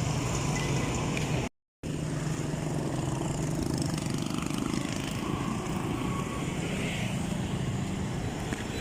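Motor vehicle running on a street, a steady engine hum with road noise. The sound cuts out completely for a moment about one and a half seconds in.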